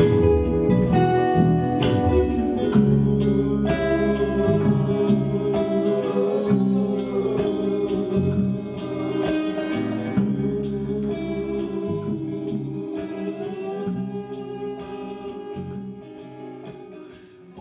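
A band song with acoustic and electric guitars, voices singing and a steady beat, about two to three strokes a second. It slowly fades out over the second half.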